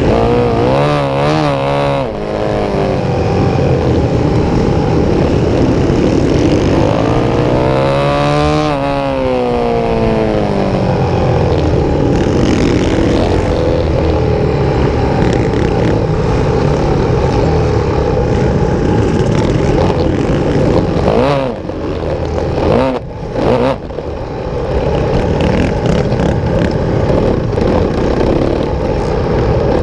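Supermotard motorcycle engine at racing speed, revving up and down through gear changes as it accelerates. About two-thirds of the way through, the throttle shuts off briefly a few times before the engine pulls hard again.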